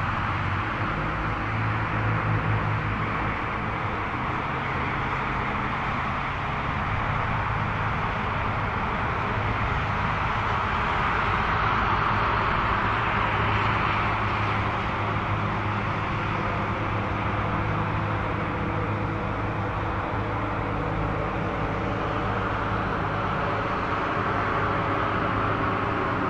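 Twin jet engines of a Rouge Airbus A319 running at takeoff thrust as the airliner rolls away down the runway: a steady jet roar with a faint whine, swelling slightly about halfway through.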